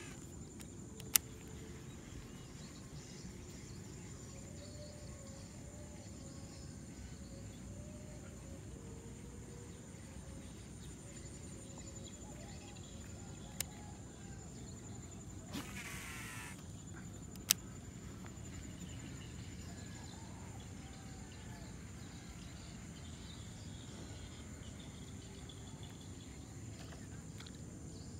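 Steady high-pitched insect buzzing over a low outdoor background hum, broken by three sharp clicks and one short rushing whir about halfway through.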